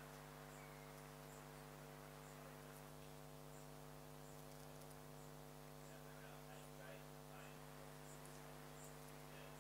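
Near silence: a faint, steady electrical hum, with faint high chirps in the background.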